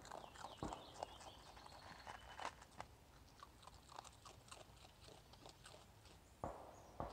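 A raccoon chewing and crunching food in irregular sharp crunches, with a couple of louder ones near the end.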